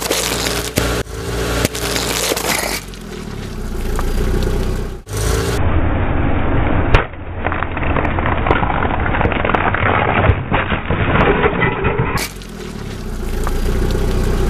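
Car tyres rolling over and crushing brittle objects: dense crackling and cracking with sharp snaps, the loudest about seven seconds in. A car engine runs low and steady in the stretches between the crushing.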